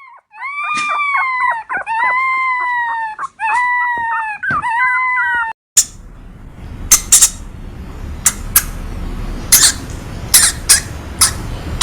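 An animal giving about four drawn-out, high whining cries that rise and fall. About halfway through they stop and a different recording takes over: a steady hiss with a series of sharp clicks.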